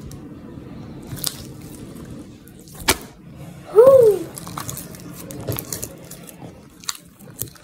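Homemade slime being squished and worked by hand, giving scattered sticky clicks and small pops. A short hummed vocal sound, rising then falling, comes about halfway through and is the loudest thing.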